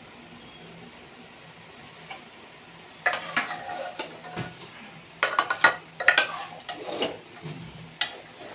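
Kitchen utensils clattering against cookware: a run of metal clinks, knocks and scraping that starts about three seconds in, after a quiet start.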